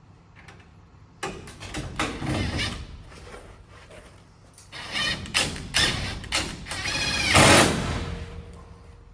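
Greenhouse parts being handled and fitted during assembly: a string of knocks and rattles with scraping, sliding sounds, the loudest a long scrape about seven and a half seconds in.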